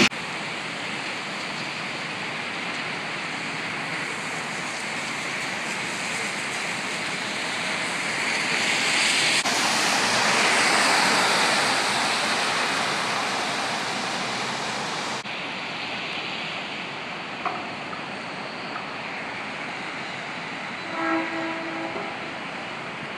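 Traffic passing on a rain-wet street: a steady hiss of tyres on wet asphalt that swells as cars go by about ten seconds in, then settles. Near the end comes a brief pitched tone, like a short horn.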